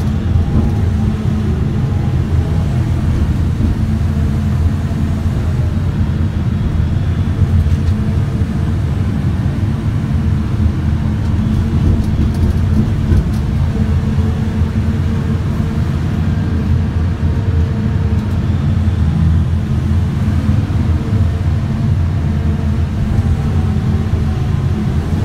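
Terex RH170 front shovel excavator working, heard from inside its operator's cab: a steady low machine drone while the shovel dumps earth into a haul truck, swings back and digs into the face.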